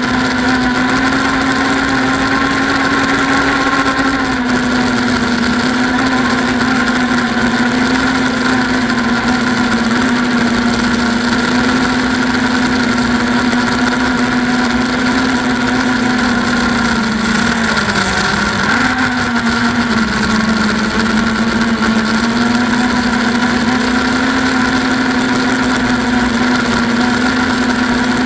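Eachine Wizard X220 racing quadcopter's four brushless motors and propellers whining steadily in flight, heard close up from a camera on the quad, with a hiss of rushing air. The pitch dips and wavers briefly about eighteen seconds in, then climbs back.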